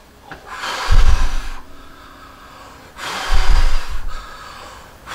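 Breath blown hard at an Andoer AD-M2 on-camera microphone with its furry windscreen fitted, as a simulated wind test. There are two long blows, each a breathy rush with a deep rumble of air buffeting the mic, and a third starts at the very end.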